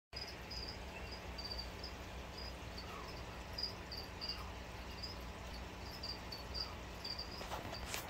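Short high chirps repeating unevenly, about twice a second, over the steady low hum of aquarium equipment.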